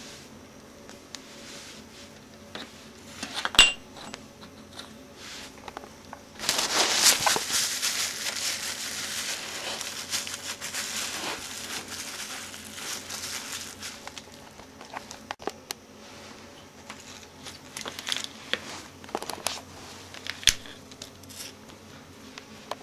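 Tools and PVC pipe parts of a home-built air cannon being handled, with scattered clicks and knocks. About six seconds in, a loud rushing noise starts suddenly and fades away over about seven seconds.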